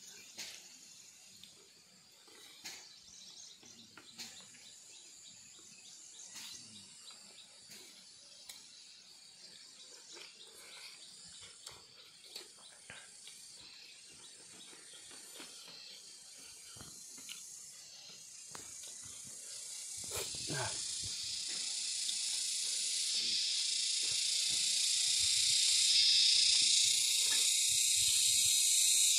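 Soft, scattered mouth and finger clicks of hand-eating and chewing, then a high, steady insect buzz that starts swelling about two-thirds of the way in and holds loud near the end.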